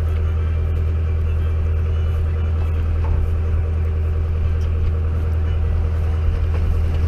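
Fishing boat's engine running steadily: a loud, even low hum with a steady pitch that holds throughout.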